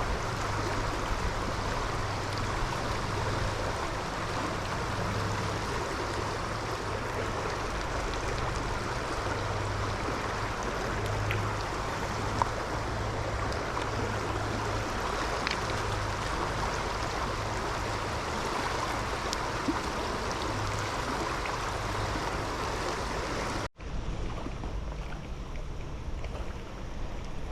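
Steady rushing of a fast-flowing trout stream's current. It cuts out for an instant near the end and resumes a little softer.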